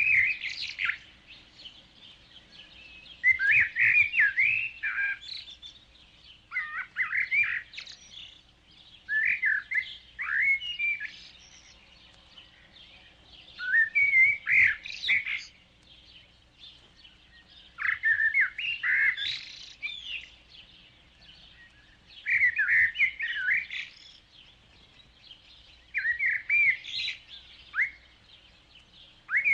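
A songbird singing short, warbling phrases, one every three to four seconds.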